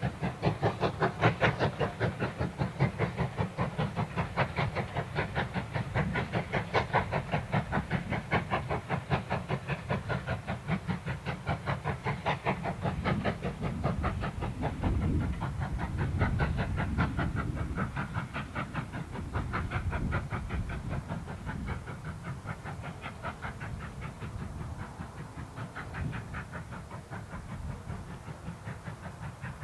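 LSWR S15 4-6-0 No. 506 steam locomotive under steam, a fast, even exhaust beat from its chimney over the rumble of the train on the rails. The beat fades over the second half as the train draws away.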